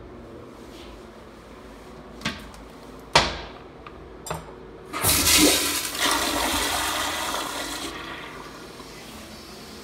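A 2015 Mansfield Quantum toilet flushing. A few sharp clicks and a knock come first, then water rushes loudly through the bowl for about three seconds and fades away.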